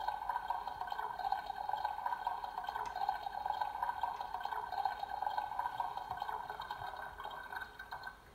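Toy coffee machine running and filling a cup, a steady liquid-filling sound that fades out near the end.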